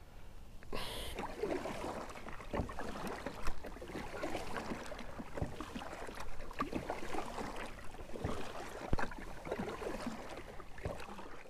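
Bonafide SS107 fishing kayak being paddled: water splashing and dripping off the paddle with each stroke, with occasional sharp knocks.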